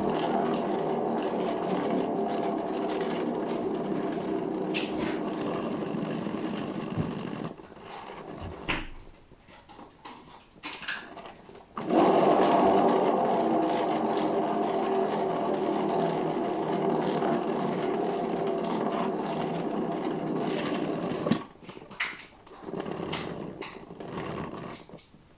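Small electric motor of a paint spinner running steadily, spinning poured acrylic paint out toward the edges. It stops about seven and a half seconds in, starts again about twelve seconds in, and stops near the end, followed by a few knocks.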